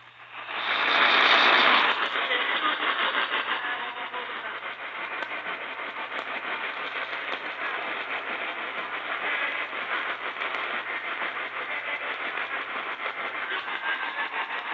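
Radio static from a weak, poorly received signal: a loud rush of noise about half a second in, then steady crackling hiss over a faint low hum that drops out near the end.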